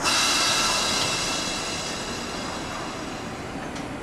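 Sudden hiss of compressed air let out of an air brake, loudest at the start and fading away over about two seconds.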